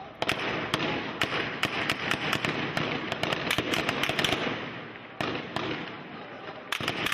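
Gunfire from rifles: rapid, irregular shots, several a second for about four seconds. After a short pause come single shots and a last quick cluster near the end, over steady background noise.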